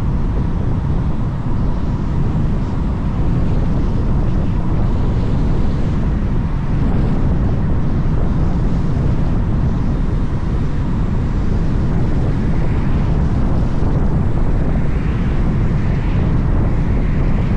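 Steady low rumble of a vehicle driving, with wind and road noise and no sudden events.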